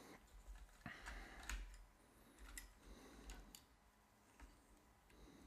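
Near silence broken by a few faint, scattered clicks, as of hands handling a multimeter's plastic case.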